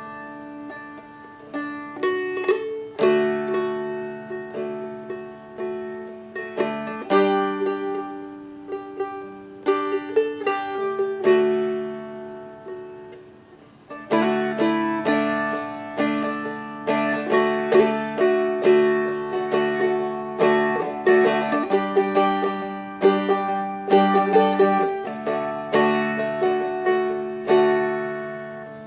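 Seagull Merlin, a fretted dulcimer-style instrument, played as a chord melody of plucked and strummed chords. About eleven seconds in the notes ring out and fade, and about fourteen seconds in the playing picks up again.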